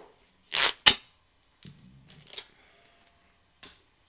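Cardboard shipping box being torn open and handled: a short rip and a sharp snap within the first second, then a few faint rustles and a light tap.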